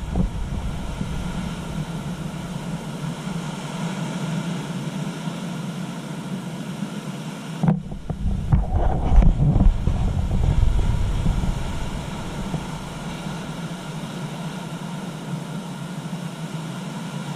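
Steady rush of ocean surf breaking over a rocky shoreline, with wind on the microphone. About eight seconds in it turns louder and deeper for a few seconds.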